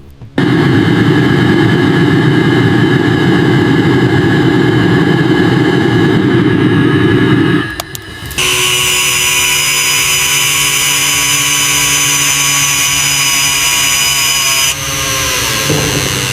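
Power tools at work on metal: a deep, rough-running tool for about seven seconds, then, after a short break, a higher-pitched, hissing one whose motor winds down near the end.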